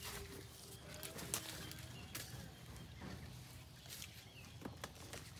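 Soft clicks and leaf rustles from water apples being picked by hand off the branch, about four in all, with a faint bird call in the background.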